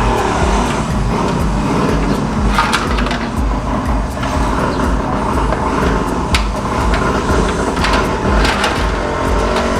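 Steady low engine rumble of motorized tricycles running outside, with scattered sharp clicks and knocks from handling parts.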